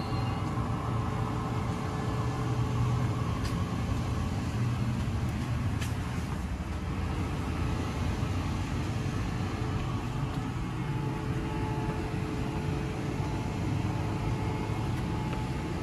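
New Jersey Transit train with an ALP-46A electric locomotive going by close overhead, giving a steady low hum and rumble.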